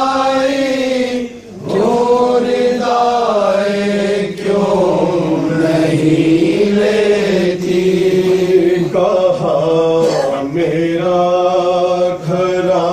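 Noha, a Shia mourning lament, chanted by a voice in long drawn-out melodic phrases, with short breaks between the phrases.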